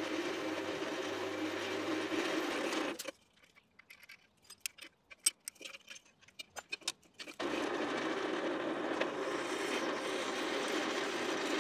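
Drill press driving a twist bit through mild steel flat bar: a steady cutting and motor noise. It stops about three seconds in, giving way to a run of light metallic clicks and taps as the work is handled, and drilling starts again a little after seven seconds.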